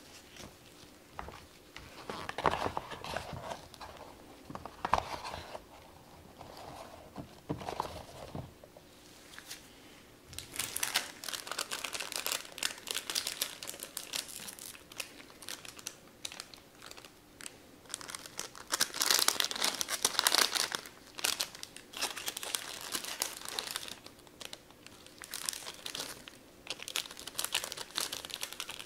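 Foil chip pouch of a Paqui One Chip Challenge crinkling and rustling in gloved hands as it is handled and pulled open, in repeated bursts with the loudest crinkling about two-thirds of the way in. In the first several seconds there are duller rustles of the cardboard packaging being handled.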